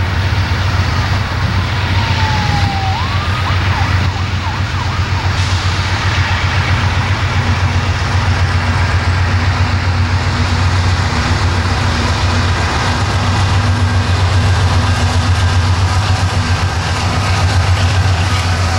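Norfolk Southern diesel freight locomotives approaching and passing, their engines running with a steady low drone and a second, higher steady hum. A few seconds in, a faint tone glides down and then sweeps back up.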